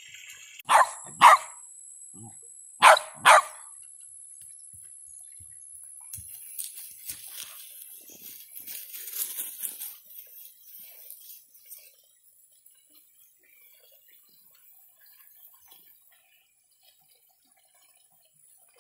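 Dog barking: two pairs of quick, loud barks about two seconds apart, followed by several seconds of fainter rustling noise.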